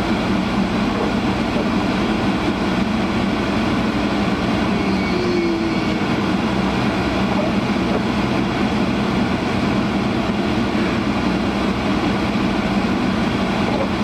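Honda CR-V's defroster blower running at full blast, a steady loud rush of air filling the car's cabin.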